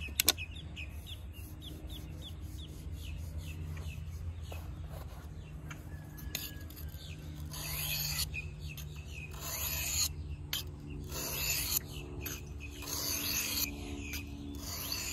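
A knife blade drawn across a water-wetted sharpening stone, a rasping scrape with each pass. The strokes start about halfway and come roughly once a second, with birds chirping earlier on.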